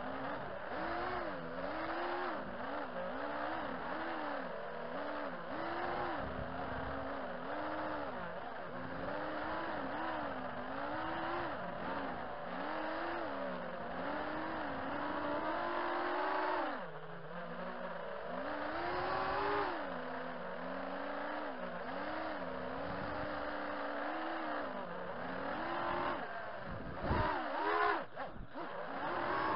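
Brushless motors and 5-inch propellers of an FPV racing quadcopter (2206 2200 kV motors), heard from the onboard camera: a buzzing whine whose pitch rises and falls constantly with the throttle. It drops sharply about 17 seconds in and cuts in and out a few times near the end as the throttle is chopped.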